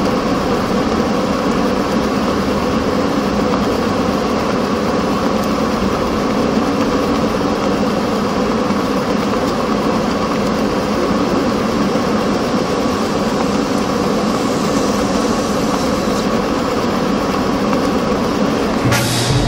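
Large electric blower fan of a fabric flame-effect installation running steadily, a loud even rush of air with a low hum. It cuts off abruptly near the end.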